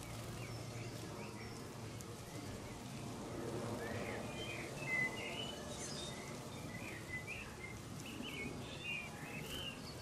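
Small garden birds chirping: a run of short, quick chirps starting about three or four seconds in, the loudest near the middle, over a steady outdoor background hum.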